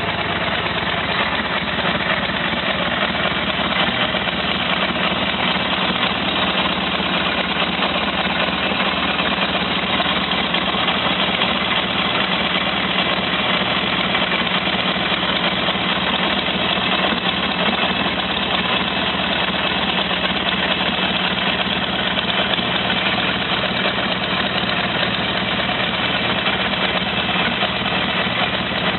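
Buell XB12Ss motorcycle's air-cooled V-twin engine idling steadily.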